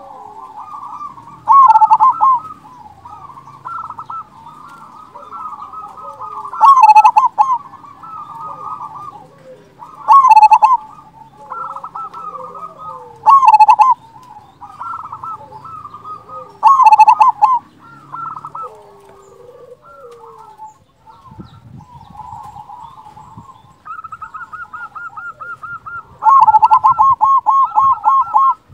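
Zebra dove (perkutut) cooing: rapid rolling coo phrases, the loud ones coming every three to four seconds with softer cooing in between. Near the end comes a long, fast run of loud coos.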